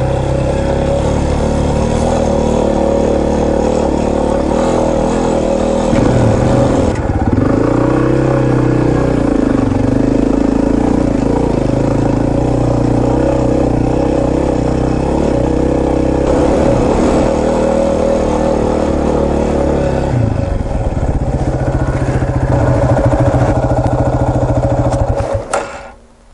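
Yamaha Serow 250's air-cooled single-cylinder engine running steadily as the motorcycle rides the dirt course, its note shifting about 7 and 20 seconds in. The sound stops abruptly near the end.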